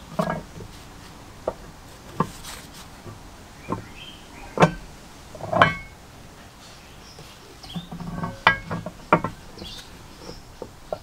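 Scattered knocks and short metallic clinks as a restored cast-iron Bee-Tee Whirlwind forge blower housing is handled and set down, the loudest pair about halfway through and a few more near the end.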